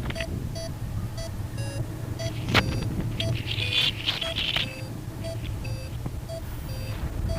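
Short electronic beeps repeating about twice a second over a low rumble of wind on the microphone, with a single sharp knock a little over two and a half seconds in.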